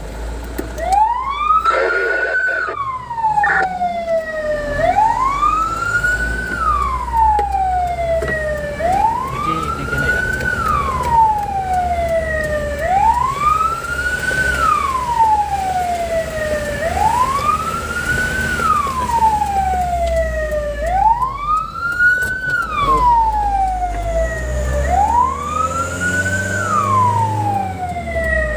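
Fire truck's wail siren heard from inside the cab, sweeping quickly up and then sliding slowly down, once about every four seconds, with the truck's engine rumbling underneath.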